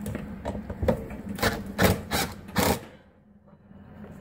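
A run of sharp knocks and clanks, six or so in about two and a half seconds, then a short lull near the end.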